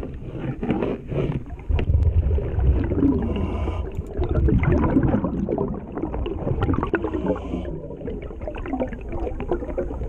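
Muffled underwater sound of a diver working on a boat hull: bubbling and gurgling with irregular scraping and small knocks from a wire brush scraper on the hull.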